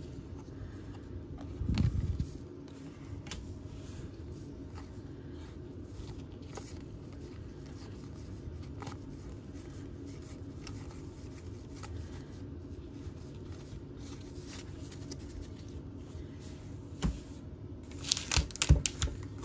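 Baseball trading cards being handled and slid against one another: faint scattered scrapes and ticks over a low steady room hum, with a low thump about two seconds in and a few sharper clicks and rustles near the end.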